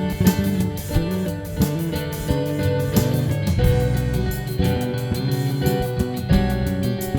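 Background music: a guitar instrumental with a steady beat.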